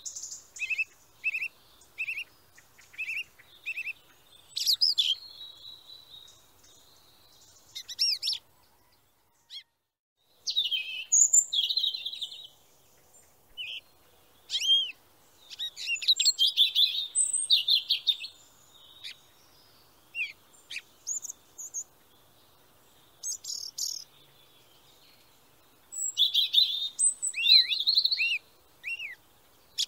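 Songbirds singing and chirping in scattered bursts: a run of short repeated notes at the start, then livelier warbling phrases with pauses of a second or two between them.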